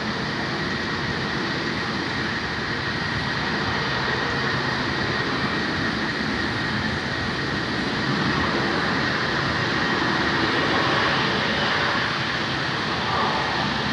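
Learjet's jet engines at takeoff thrust, heard from across the airfield as a steady rushing noise with a faint high whine, growing a little louder about two-thirds of the way through as the jet climbs out.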